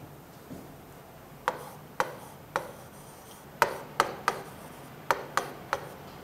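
A pen tapping on a digital whiteboard screen while a word is handwritten: about nine sharp taps at uneven intervals, starting about a second and a half in.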